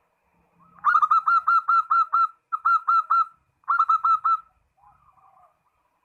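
Zebra dove (perkutut) singing its rapid, staccato cooing song in three phrases. The first is the longest run of short notes, and the next two are shorter; a few soft notes follow near the end. This is the song used to call out a rival.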